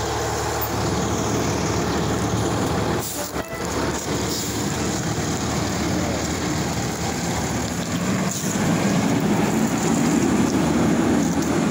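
Fire engine running close by at the scene: a steady engine rumble with a rushing noise, louder over the last few seconds.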